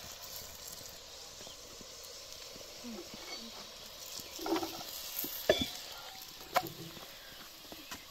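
Potato flatbread sizzling steadily in hot oil in a cast-iron pot, with a metal spoon scraping under it and knocking against the pot as it is turned; two sharp knocks in the second half are the loudest sounds.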